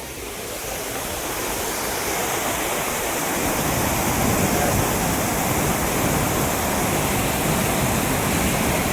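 Floodwater rushing through the open gates of a dam, a steady loud roar of water that grows louder over the first few seconds and then holds even.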